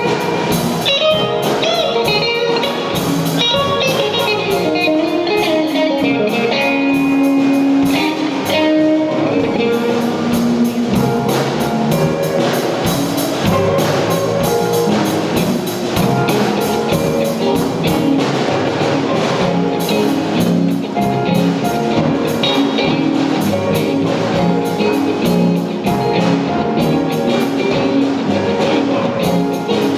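Live jazz-funk band music: an electric bass solo over drum kit and keyboard accompaniment.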